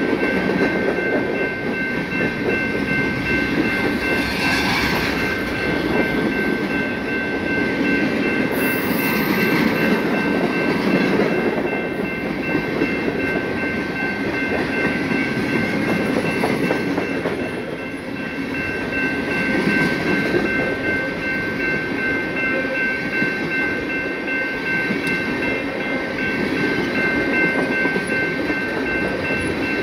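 Loaded freight cars of a passing freight train (gondolas, hoppers and tank cars) rolling by at close range: a continuous rumble of steel wheels on rail with clacking over the joints, swelling and easing every few seconds. A few steady high-pitched tones ring through the whole time.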